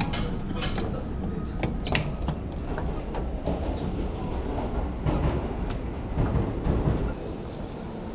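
A train rumbling and clattering on the tracks, swelling about five seconds in and easing off near the end. There are a few sharp clicks in the first two seconds.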